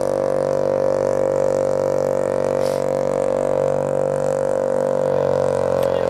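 Mazda RX-7's rotary engine being cranked by the starter motor, a steady unbroken drone that doesn't catch: the engine won't start.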